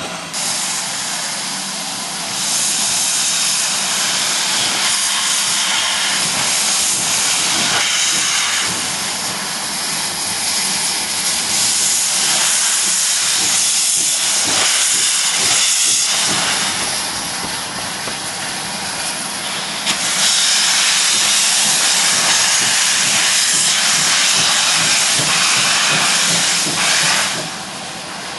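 Steam locomotive letting off steam: a loud, steady hiss that grows louder about two seconds in and again about two-thirds of the way through, then falls away sharply near the end.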